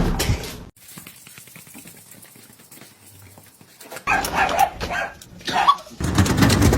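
A dog barking and yipping in a cluster of short bursts from about four seconds in, with a brief loud noise at the very start and a loud noisy stretch near the end.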